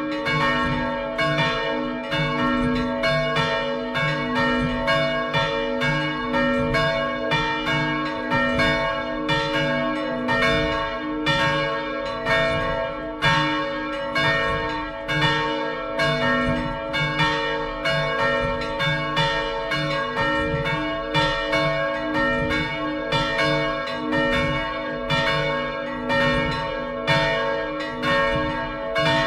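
Full peal of three swinging bronze church bells, about 370 kg, 195 kg and 37 kg and tuned roughly to B-flat, C and a higher B-flat, their clappers striking in an uneven, overlapping stream of a few strokes a second while the tones ring on.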